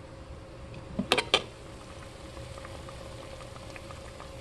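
Pots of greens and neck bones simmering on the stove, with a faint steady hum underneath. About a second in, three sharp clicks in quick succession stand out above it.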